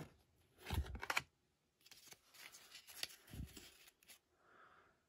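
A stack of trading cards being handled and flipped through in the hands: faint, irregular rustling of cards sliding over each other, with light clicks and a soft bump a little past three seconds in.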